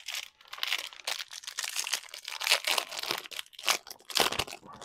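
Crinkling and crackling of the foil wrapper on a pack of trading cards as it is handled and opened, with a few louder crunches near the end.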